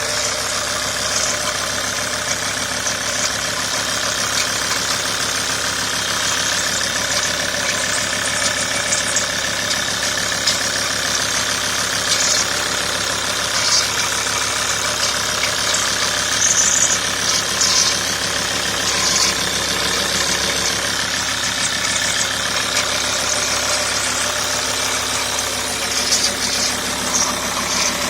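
Alfa Romeo 159 2.4 JTD five-cylinder diesel engine idling steadily, with irregular short high-pitched chirps over the running. This is the sound of its broken water pump.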